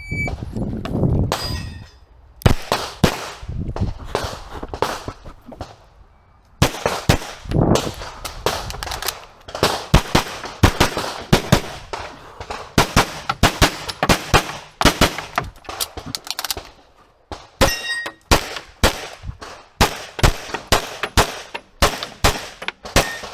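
A shot-timer beep, then a run of handgun shots fired in quick pairs and fast strings, broken by short pauses. Now and then a ringing clang from steel targets being hit.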